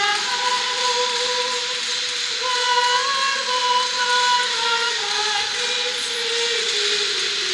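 Slow sacred music in a large church: a melody of long held notes, each lasting about a second before moving to the next.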